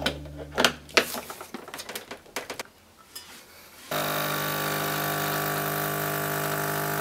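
A portafilter clicks and knocks as it is locked into the group head of a DeLonghi espresso machine, with a few more metal clicks. About four seconds in, the machine's vibration pump starts with a steady, loud buzz, pulling the espresso shot.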